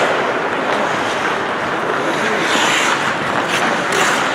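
Ice hockey play on the rink: a steady wash of skate blades scraping the ice, with a few sharp stick or puck knocks near the end.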